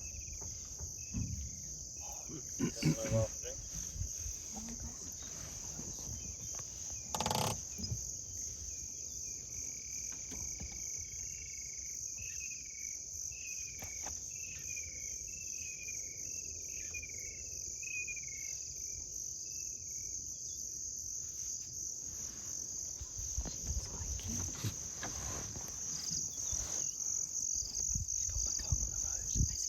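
Crickets trilling in a steady high-pitched chorus. In the middle comes a run of about a dozen short, falling chirps, and there is a single sharp knock about seven seconds in.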